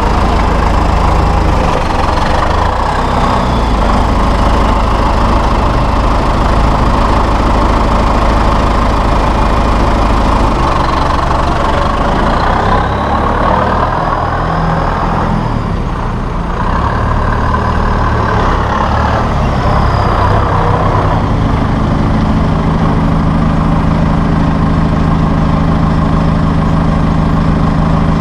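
John Deere 5101E tractor's 4.5-litre PowerTech diesel engine running steadily as the tractor drives around and away. Faint rising and falling whines come in near the middle, where the sound eases slightly before picking up again.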